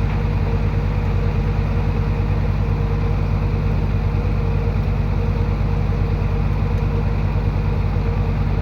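Diesel engine of heavy earthmoving equipment running steadily at an even speed, without revving.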